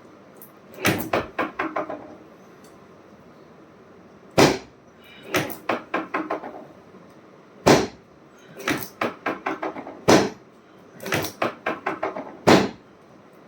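Sharp knocks and thuds of chiropractic adjustments, in four quick runs of five or six knocks, each followed by a single louder thud.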